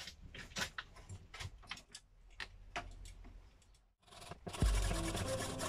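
A few light clicks and taps of tools being handled, then, after a short pause near four seconds in, a hacksaw starts sawing through the shaft of an electric boat motor, with a couple of low knocks.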